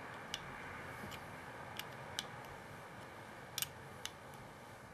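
A few light, sharp clicks spaced a second or so apart, from hands working a brass compression fitting, tightening the compression sleeve onto the air hose.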